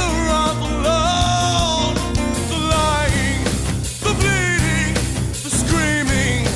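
Rock song playing: a singer holding long, bending notes over a full band with a steady beat.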